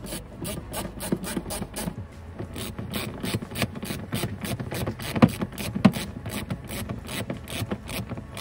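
Hand ratchet clicking steadily, about four clicks a second, as it winds in the bolts of a car's wheel-arch liner, with two louder knocks about five and six seconds in.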